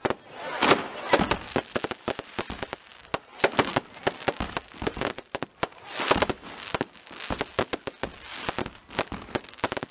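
Daytime firework rockets bursting overhead in a dense, irregular barrage of sharp bangs and crackles, several a second without a break.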